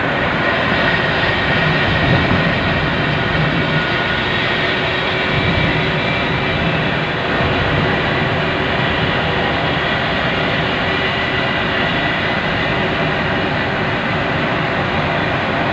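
Steady road and tyre noise of a car cruising at freeway speed, heard from inside the cabin.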